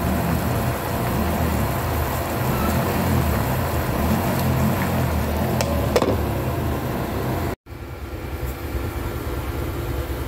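Sausages cooking in a pan of bubbling water and fat, a steady sizzle over a low hum, with a short clink about six seconds in as the glass lid goes on. The sound cuts out abruptly about seven and a half seconds in and a duller steady background noise follows.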